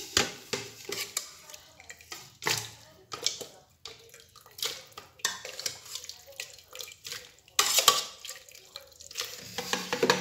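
A metal spoon scraping and clinking against an aluminium pot as soft, wet cooked potato and vegetable pieces are scooped into a blender jar. About eight seconds in there is a longer splashing stretch as the cooking liquid goes into the jar.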